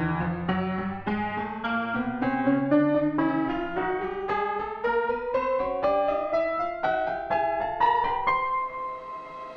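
An old, weathered piano played in a run of separate notes, about three a second, climbing steadily in pitch and settling on a held note near the end.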